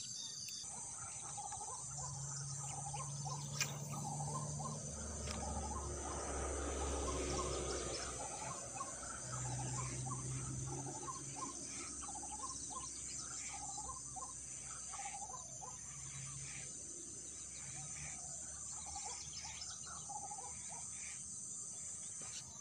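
Dusk chorus of insects: a steady high-pitched trilling, with repeated short chirping calls about twice a second running through it. A low rumble swells and fades in the middle.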